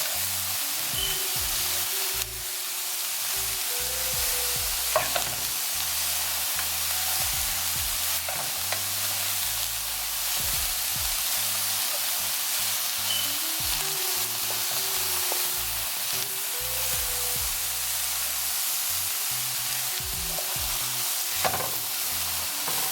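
Mushrooms and red onions sizzling as they sauté in oil in a pan, stirred and turned with a utensil scraping over the pan. A few sharper knocks of the utensil against the pan, the loudest about five seconds in and another near the end.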